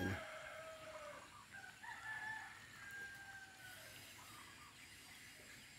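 A rooster crowing, faint. One crow trails off in the first second, and a second long crow comes at about one and a half seconds, sinking slowly in pitch.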